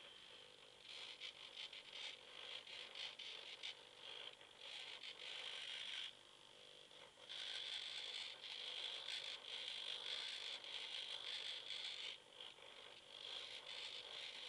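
Small hobby servo motors whirring in stop-and-start stretches as the light tracker turns left, right, up and down to follow a flashlight. The whir drops away briefly about six seconds in and again about twelve seconds in.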